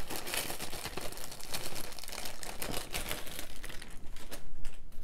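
A plastic zip-top bag crinkling, and handmade polymer clay beads clicking against each other as they are poured out and pushed around by hand in many small irregular clicks.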